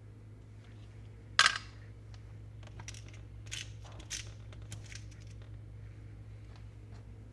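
Small hardware being handled on a workbench: one loud sharp clatter about a second and a half in, then a run of light clicks and taps as small nuts and standoffs are fitted by hand. A steady low hum runs underneath.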